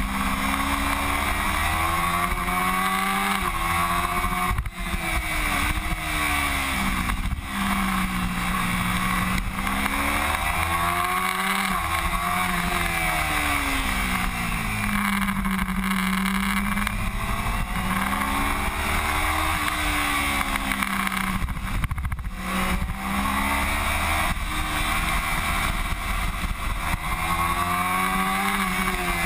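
Onboard sound of a Kawasaki Ninja 250R's parallel-twin engine at racing speed, its pitch climbing under acceleration and dropping off into corners again and again, over steady wind rush.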